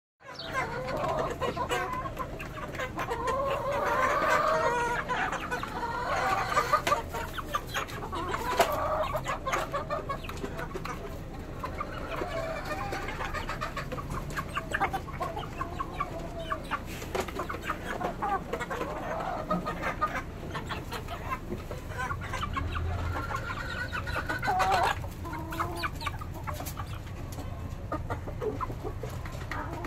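A flock of chickens clucking and calling on and off as they feed, with many short, sharp taps of beaks pecking at feed on concrete.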